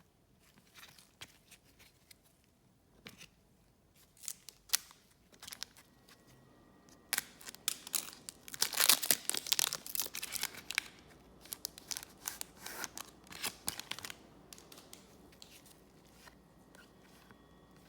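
A trading-card pack wrapper being torn open and crinkled, with scattered light clicks and rustles around it. The tearing and crinkling is densest from about seven to fourteen seconds in.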